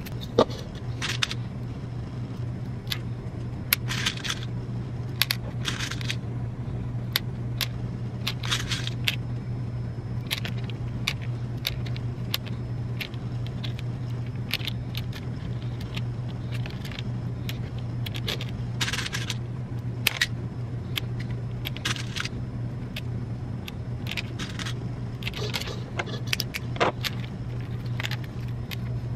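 Plastic pony beads and letter beads clicking and rattling as they are threaded onto elastic cord and knocked against a plastic bead tray, with the stacked metal bracelets on the wrist jingling; irregular small clicks and short clattering runs over a steady low hum.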